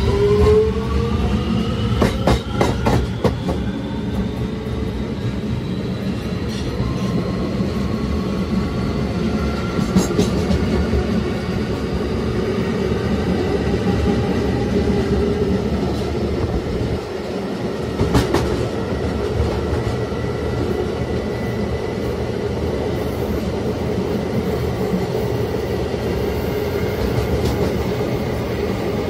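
NYC subway car's Alstom OptONIX IGBT-VVVF traction inverter whining in several rising tones as the train gathers speed, fading out within the first ten seconds. After that comes steady running rumble, with a few sharp clacks of the wheels over rail joints.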